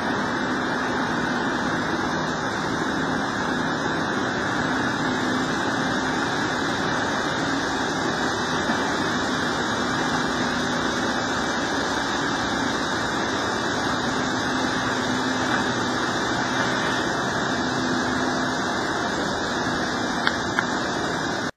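An excavator's diesel engine runs steadily and evenly, with no sudden changes.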